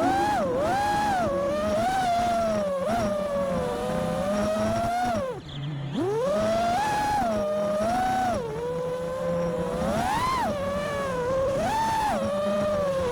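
A 5-inch FPV freestyle quadcopter's brushless motors (2207 1960kv with Gemfan Hurricane tri-blade props) whining, their pitch rising and falling with each throttle punch. About halfway through the throttle drops off, the whine dives low and then surges back up.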